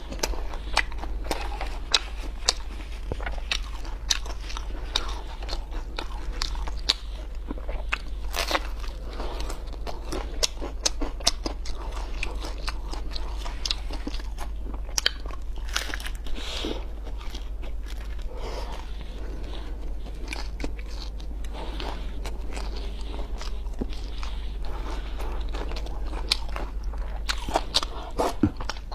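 Close-miked eating of luosifen (river-snail rice noodles): crunchy bites and chewing with many sharp clicks throughout, over a steady low hum.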